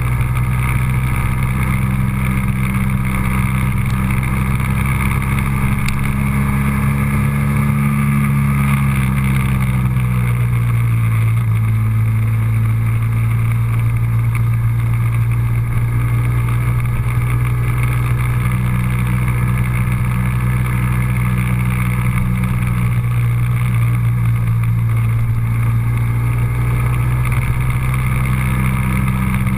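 Vehicle engine running with a steady drone and low rumble, its pitch easing down about ten seconds in.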